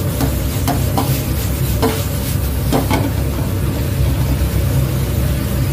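Restaurant wok burner at full high flame, a loud steady roar, with pork stir-fry sizzling in the wok and the metal cooking tool clanking against the wok several times in the first three seconds.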